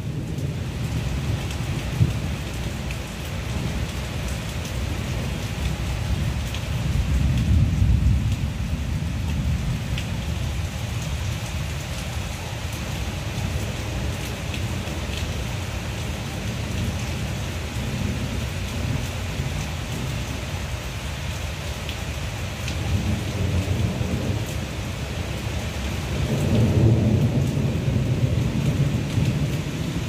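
Heavy rain falling steadily on trees and grass, with low rolls of thunder swelling about seven seconds in and again near the end.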